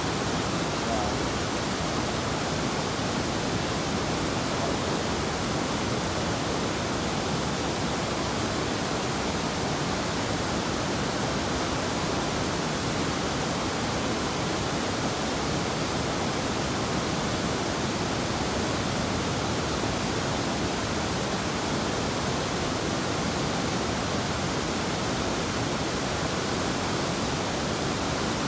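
River water rushing over rapids and spilling down small waterfalls: a steady, unbroken rush of white water.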